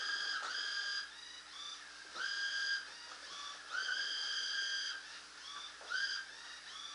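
A person whistling a tune: a run of pitched notes, some short and some held for about a second, in phrases with short pauses between them.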